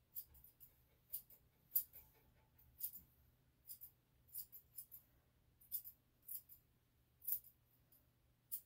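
Small grooming scissors snipping the hair around a dog's front paw: crisp, quick snips, about one every half second to a second.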